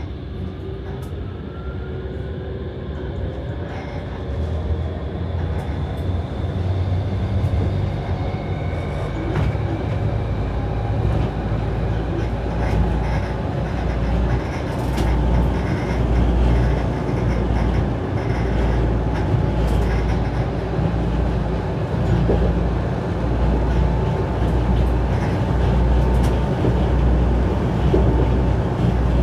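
Vario LF low-floor tram running on rails, heard from the driver's cab. Its motor whine rises in the first few seconds as it picks up speed, then it settles into a steady rolling rumble with a regular low thud about once a second.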